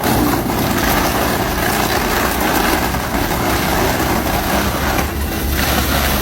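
Engine-driven wood chipper running steadily, a low engine hum under a constant loud rushing noise.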